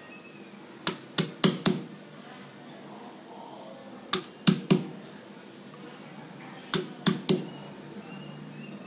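A stone pestle (ulekan) knocking down on shallots on a wooden cutting board, smashing them, in three quick bursts of three to four hard knocks each, a few seconds apart.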